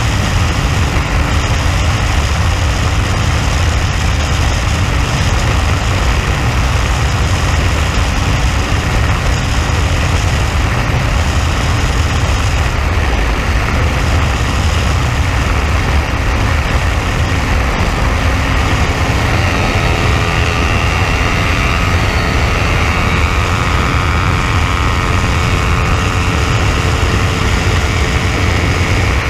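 Motorcycle cruising at highway speed, wind rushing loudly over the microphone with the engine running underneath. About twenty seconds in, a higher engine note appears and slowly rises in pitch.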